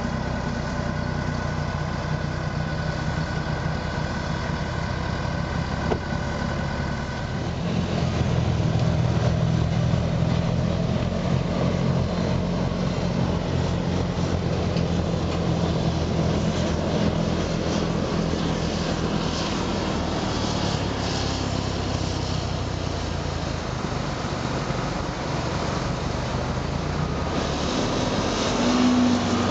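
Vohl VL-350 loader-mounted snow blower running: its 350 hp John Deere diesel engine and the carrying wheel loader's engine make a steady, heavy drone. About a quarter of the way in, the sound grows louder and rougher as the blower works through the snowbank and throws snow from its chute.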